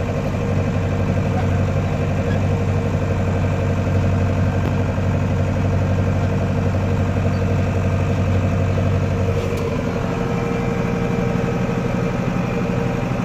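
Farm tractor engine running steadily under load, heard from inside the cab while it pulls a meadow harrow. The engine note changes about two-thirds of the way in, the deep part dropping away.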